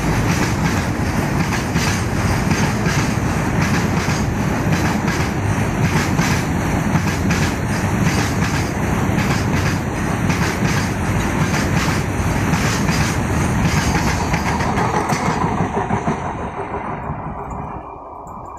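Train of tank wagons rolling past close by, the wheels clattering steadily over the rail joints. Near the end the noise thins and fades as the last vehicle passes and moves away.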